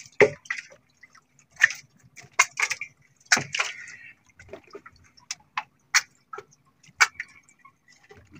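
Irregular sharp clicks and taps from a squid jig and handline being handled against the boat, over a faint steady hum.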